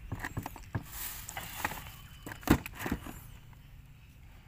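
Scattered clicks and knocks of fishing gear being handled in a small boat, with one sharp knock about two and a half seconds in.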